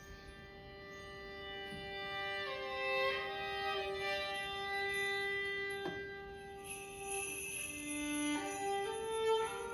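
Violin playing slow sustained notes with slides, over a steady held ringing tone. From about seven seconds in a bright, bell-like shimmer of high tones joins in.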